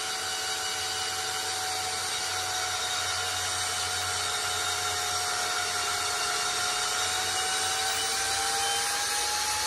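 Makita cordless drill running steadily, turning a self-feeding helical burnishing die inside a motorcycle fork bushing. Its motor whine creeps slightly higher in pitch over the last few seconds.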